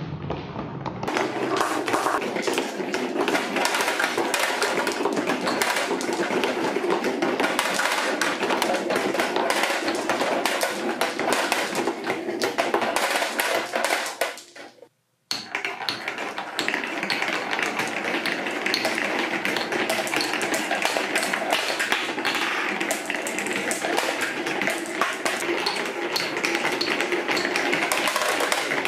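Marbles rolling and clattering along a marble run, a dense stream of rapid clicks and taps. The sound drops out briefly about halfway through, then the clatter starts again.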